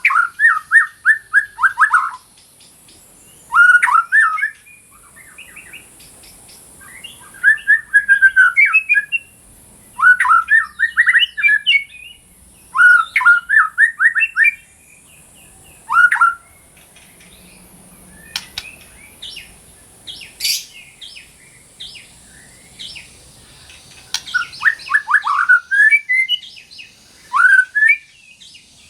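White-rumped shama (murai batu) singing: loud short phrases of rapid repeated notes, each about a second long, coming every two to three seconds, over a faint steady high hiss.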